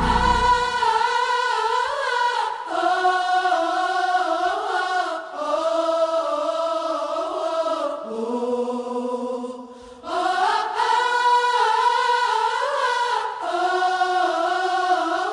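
Background music of several voices singing together in harmony, with no drums or bass. The singing drops away briefly about ten seconds in, then comes back.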